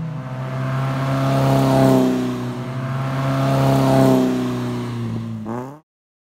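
Toyota MR2 Spyder's 1.8-litre four-cylinder engine running at a steady speed as the car drives past close by, loudest about two seconds in and again about four seconds in. Near the end the engine note rises briefly, then the sound cuts off suddenly.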